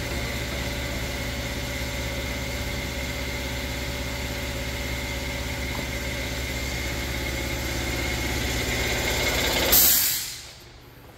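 Steady mechanical drone with a constant hum, growing slightly louder, then a short burst of hiss near the end, after which it falls away to a faint background.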